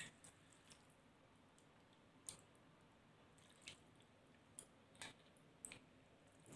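Faint drips and light clinks of a metal ladle scooping water from a stainless steel bowl and pouring it off: a handful of short, scattered ticks, the first the loudest, over a near-silent background.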